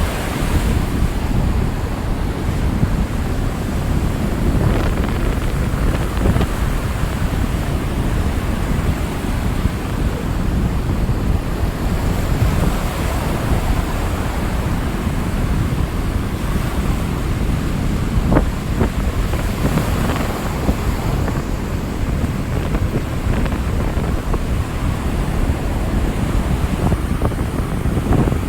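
Rough Atlantic surf: waves breaking and rushing continuously in a deep, steady rumble, with wind buffeting the microphone.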